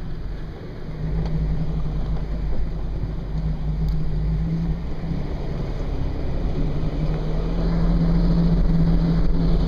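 Toyota FJ Cruiser's V6 engine running under load on an off-road trail, heard from inside the cabin as a steady low hum with rumble. It grows louder about a second in and again near the end.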